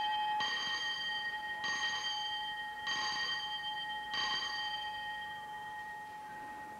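School bell ringing for break time: one steady ringing tone that swells again about every second and a quarter and slowly fades.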